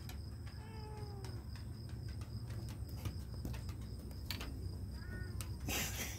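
Domestic cat giving two complaining meows as a puppy climbs on it: a longer one falling in pitch about half a second in, and a short one about five seconds in, then a short burst of noise near the end.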